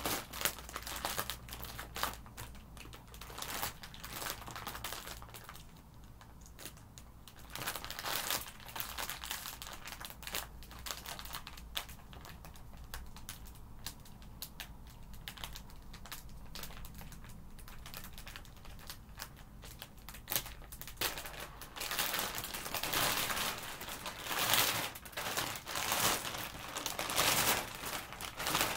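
Thin clear plastic bag crinkling and crackling in irregular bursts as it is handled and its tie picked open. It grows louder and busier over the last several seconds as a large zip-lock bag is pulled open.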